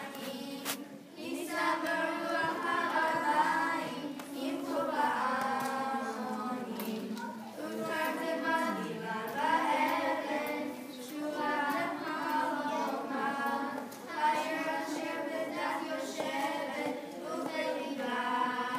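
A small group of children singing together, phrase after phrase with short breaths between.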